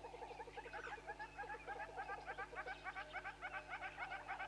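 Several birds calling at once in rapid, repeated chattering notes, a dense chorus that grows louder about a second in.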